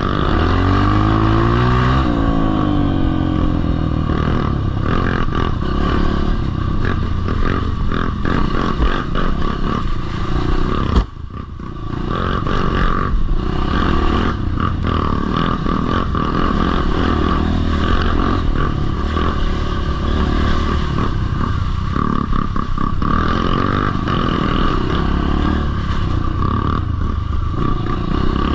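Motocross bike engine revving up and down under varying throttle while riding, with rattling and scraping from the bike. About eleven seconds in there is a sharp knock, and the engine briefly drops off before picking up again.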